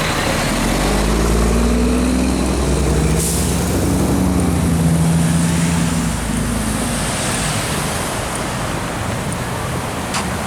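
A road vehicle's engine passing close by, its pitch rising as it speeds up over the first couple of seconds and then fading after about six seconds, over steady traffic noise.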